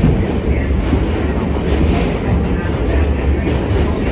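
Inside an R68 New York City subway car running along the track: a steady rumble of wheels on rail.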